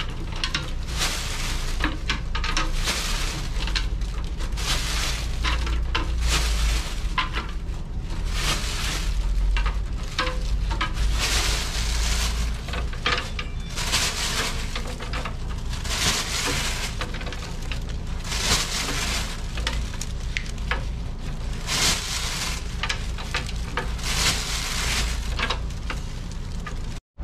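Handfuls of mixed beans and toppings scattered and spread by hand over a cloth-lined metal steamer tray: a rattling swish repeated every second or two, over a steady low machine hum.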